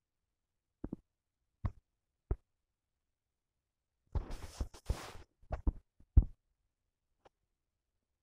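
A few soft, isolated thumps, then about a second of rustling noise, followed by several more thumps.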